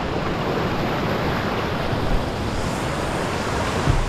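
Waterfall's rushing water, a steady hiss of falling water, with a brief low bump near the end.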